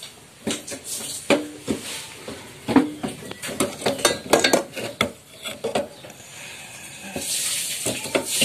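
Metal parts of a gas stove burner clinking and knocking against the stainless-steel stove body as they are fitted back in place, some knocks ringing briefly.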